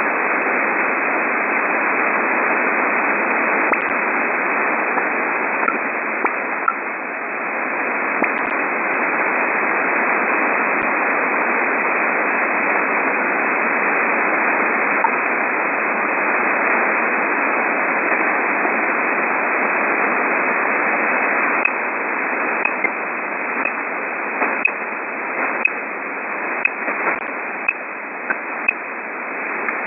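Shortwave radio receiver tuned around 13 MHz, giving a steady hiss of band noise with short, irregular pips or ticks at varying strength. A few come in the first half, and they come much more often from about two-thirds of the way through. Their origin is unidentified.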